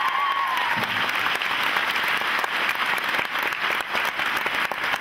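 A crowd applauding steadily, many hands clapping at once, with a brief high-pitched held tone over it in the first second.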